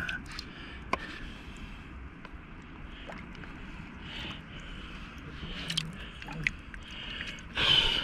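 Gloved hand handling and scraping wet rocks, with scattered small clicks and knocks and a louder scraping rustle near the end.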